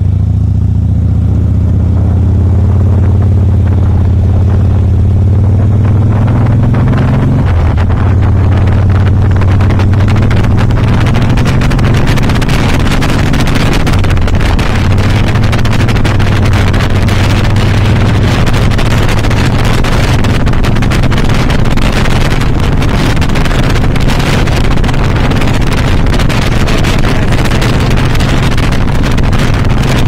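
V-twin engine of a 2007 Harley-Davidson Softail Custom running under way as the bike pulls off and rides down the road. The engine note shifts about seven seconds in, and wind noise on the microphone builds as speed rises.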